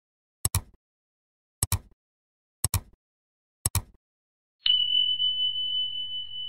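Clock ticking, a sharp double tick about once a second, then about four and a half seconds in a single high bell ding that rings on and slowly fades.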